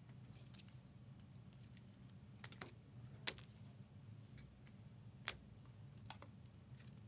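Near silence with a low steady hum and a handful of faint, sharp, scattered clicks, the loudest about three seconds in.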